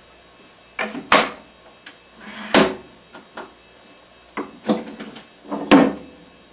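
A prototype wagon vise being worked in its bench-top slot: the wooden dog and quick-action mechanism slide and knock into place. There are three sharp clunks with several smaller knocks and a short slide between them.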